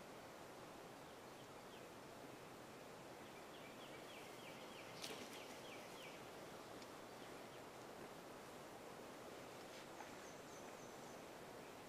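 Faint, evenly spaced yelping calls from wild turkeys, about ten short notes in a row a few seconds in. A sharp click about five seconds in is the loudest sound, and a short high trill from a small bird comes near the end.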